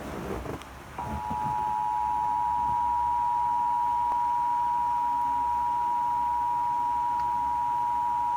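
Emergency Alert System attention signal: two steady tones sounded together, starting about a second in and holding at an even level. It announces the severe thunderstorm watch alert that follows.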